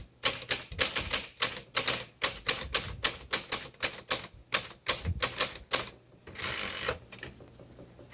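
1935 Royal Model O portable typewriter being typed on: a quick run of sharp key strikes, about four or five a second. Near the end there is a short rasping sweep, then only a few faint ticks.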